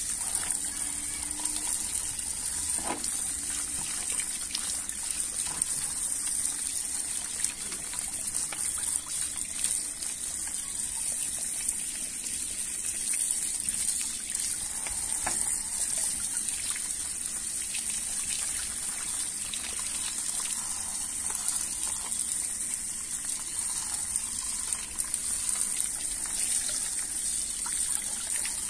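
Water splashing and dripping as a plastic toy is dunked and shaken over a bucket of muddy rinse water, with steady trickling and scattered small splashes throughout.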